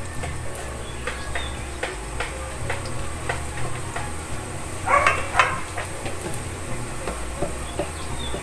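Wooden spatula stirring minced garlic in oil in a stainless steel pan: light clicks and scrapes of wood on metal over a gentle sizzle as the garlic sautés. A brief animal call about five seconds in is the loudest sound, over a low steady hum.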